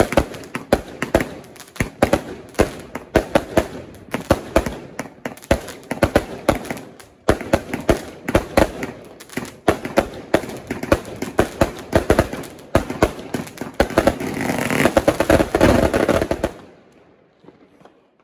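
Bonbridge Thunderstorm 175-shot salute cake firing a fast string of sharp bangs, several a second, which thickens into a dense finale volley near the end and then stops abruptly.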